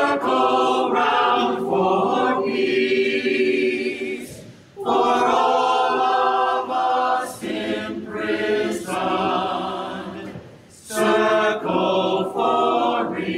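Mixed church choir singing a cappella, in long sustained phrases with two short breaks about four and eleven seconds in.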